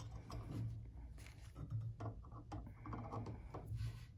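Faint metal clicks and scrapes from a Steinway piano's brass pedal being worked into its pedal box and a screwdriver being set to its mounting screw, with a short scrape about three seconds in.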